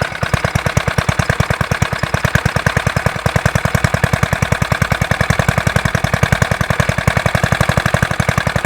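Old Suffolk engine running steadily with a rapid, even firing beat, sounding smooth now that its valves have been lapped to restore compression.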